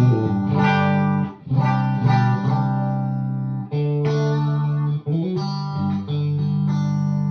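Electric guitar played through a Suhr Badger amp, plugged straight in with a short cable: chords ringing out and changing every second or so, with a quick slide up in pitch about five seconds in. It is a clean, dry tone that sounds darker than the same guitar run through a long pedalboard chain with a buffer.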